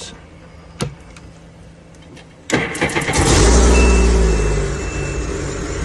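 2023 Sea-Doo RXP-X's supercharged Rotax three-cylinder engine starting on a newly made key. After a single click, it cranks briefly about two and a half seconds in, catches with a loud flare, then settles to a steady idle, showing the new key is accepted. A steady high beep sounds over the engine for about a second and a half.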